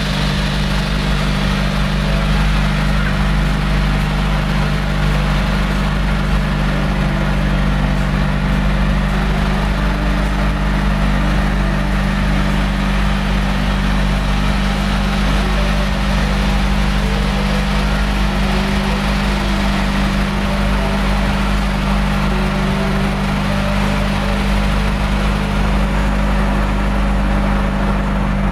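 The kempang ferry boat's engine running steadily underway, a loud, constant drone with an unchanging low hum.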